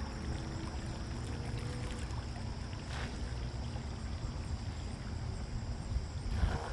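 Wind buffeting the microphone, with the faint whine of an RC model boat's electric motors running out on the water.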